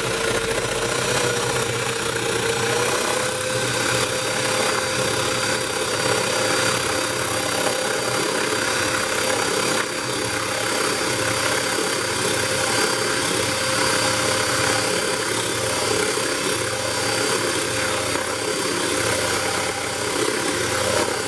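Electric hand mixer running steadily, its twin beaters whisking an egg white into froth in a stainless steel bowl. The motor's whine rises a little in pitch over the first few seconds, then holds.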